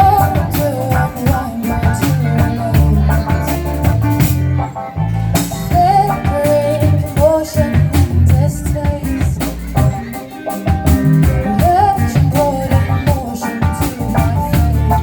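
A band playing a song: drum kit keeping a steady beat under bass and guitar, with a melody line that slides up in pitch now and then.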